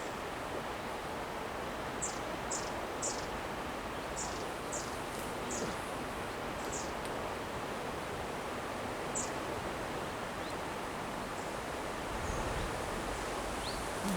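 Steady rushing outdoor background noise, with a small bird giving a run of short, high chirps, about eight of them a few seconds in and one more a little later.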